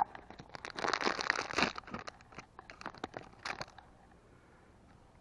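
Bar of household soap rubbed against a car door check strap in uneven scraping, crunching strokes, dying away about four seconds in: dry soap applied as lubricant to stop the door check squeaking.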